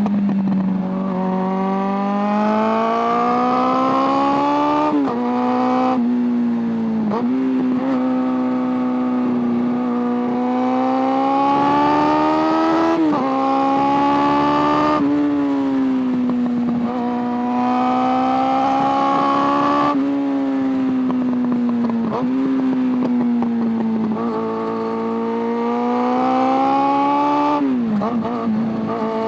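Suzuki Bandit 600's carbureted inline-four engine pulling hard, heard from onboard the motorcycle. The revs climb and then drop sharply several times as it changes gear, with easier stretches between the pulls.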